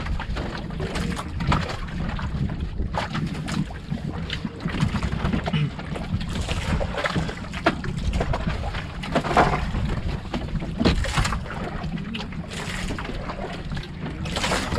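Wind buffeting the microphone and sea water moving against the hull of an outrigger boat, a steady low rumble, with scattered light clicks and knocks.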